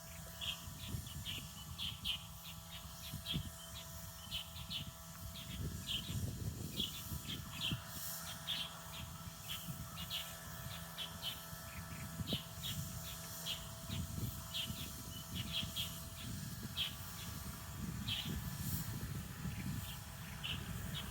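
Small birds chirping: short, high chirps repeating irregularly, often several a second, over a low rumble.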